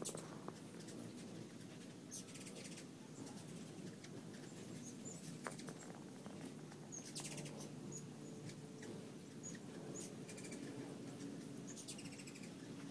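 Hummingbirds at feeders giving rapid chattering calls: several short bursts of fast, high clicking notes a few seconds apart, with single high chip notes between them.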